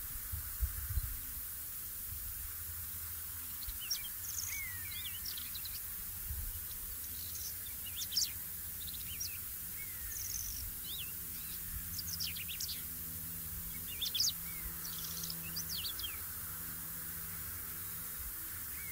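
Whinchat singing short, scratchy phrases of quick whistles and chirps, one every second or two, starting a few seconds in and stopping near the end, over a steady low rumble with a few soft low thumps near the start.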